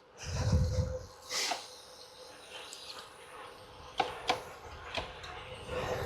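Riding noise from a road bicycle: a low buffet of wind on the microphone in the first second, then faint hiss with a few sharp clicks from the bike about four and five seconds in.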